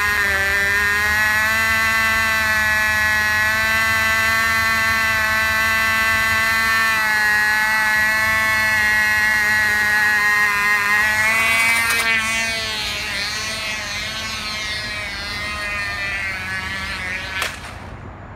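A Cox .049 Sure Start glow engine on a control-line model plane running flat out at a high, steady buzzing pitch. After about twelve seconds the pitch starts to rise and fall as the plane circles on its lines. Near the end the engine note cuts off suddenly with a sharp knock as the plane crashes.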